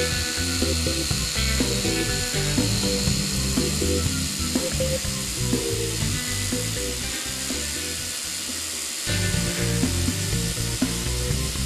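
Electric toothbrush buzzing steadily as it is rubbed against a wet black-headed caique's head and neck, with background music over it.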